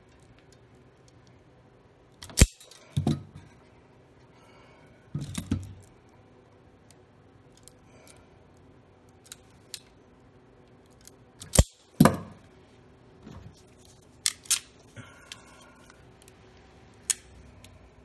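Hand wire stripper snapping shut on blower motor leads as it strips the insulation: a series of sharp clicks, several in close pairs.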